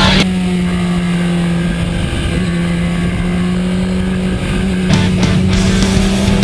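BMW S1000RR inline-four engine running at a steady pitch, which slowly climbs near the end, with rock music playing over it.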